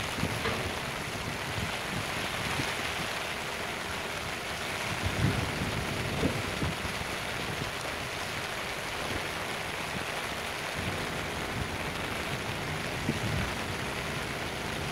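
Steady rain hissing, with a few brief low thumps about five and six seconds in and again near the end.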